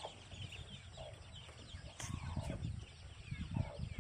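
A crowd of ducklings peeping, many short falling chirps overlapping, with some low bumps underneath.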